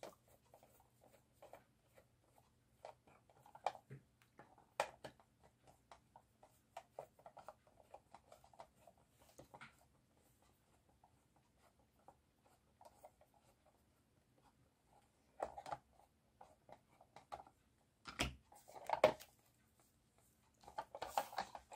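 Light clicks, taps and scrapes of a plastic toy car's body and chassis being handled and taken apart by hand, scattered through the first half, then a quieter stretch and a few louder clatters in the last third.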